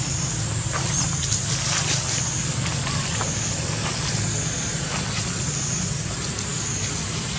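Steady outdoor forest ambience: a continuous high, slightly wavering hiss over a low hum, with a few faint rustles of monkeys moving over dry leaves.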